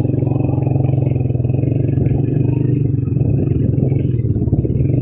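Motorcycle engine running steadily under way, with a dense, even firing beat and a little clatter from riding over rough ground.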